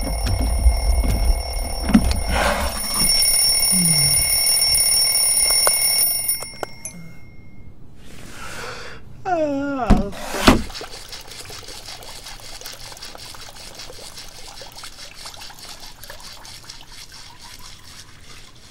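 An alarm clock rings steadily for about six seconds and then stops. About ten seconds in comes a short falling glide followed by two sharp knocks, and then a faint steady trickle of water.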